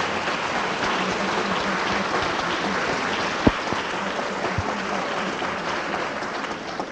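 Audience applauding in a theatre, a dense steady clapping with a sharp click about halfway through, tailing off near the end.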